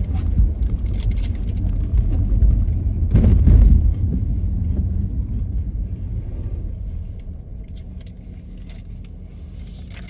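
Low road and engine rumble inside a moving car's cabin, swelling about three seconds in, then dying down over the second half.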